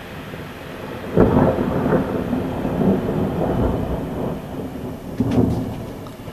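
Thunder: a sudden loud clap about a second in that rolls into a rumble for a few seconds, with a second surge near the end, over the steady hiss of rain.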